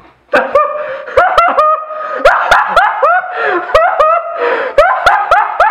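A young man laughing in quick repeated bursts with his hand over his mouth, short voiced gasps and snickers several times a second.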